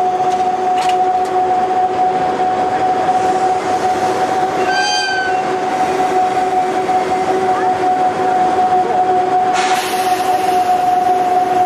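Steady electric hum from a standing EF63 electric locomotive coupled to a 189 series train. A short, high whistle-like tone sounds about halfway through, and near the end a hiss of air starts suddenly.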